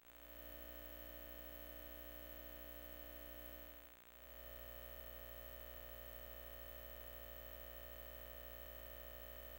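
Faint steady low hum made of several unchanging tones, dipping briefly and fading back in about four seconds in.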